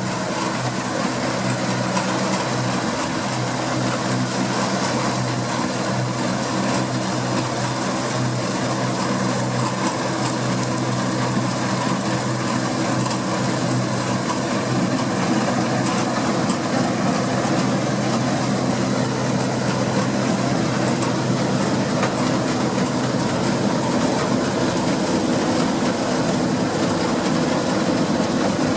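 Deutz-Fahr 6060 combine harvester running steadily while harvesting wheat: a constant engine note under an even, wide rushing noise.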